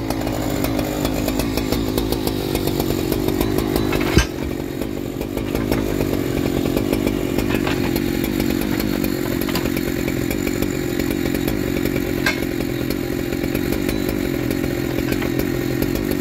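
Stock Husqvarna 3120XP chainsaw's big two-stroke engine idling steadily, off the throttle between cuts. A single sharp knock comes about four seconds in.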